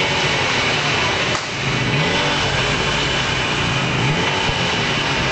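An engine running steadily under a dense hiss, its low pitch rising briefly about every two seconds.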